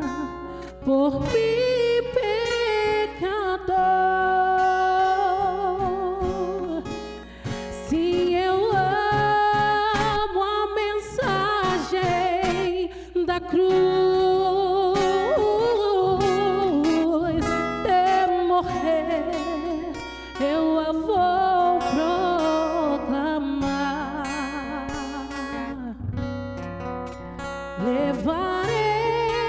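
A woman singing a Christian worship song with vibrato, accompanied by an acoustic guitar played with a pick.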